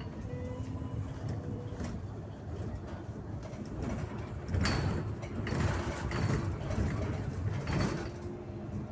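Irisbus Citelis city bus on the move, heard from inside near the front door: steady low engine and road rumble with a faint whine. From about halfway through come several short rattles and knocks.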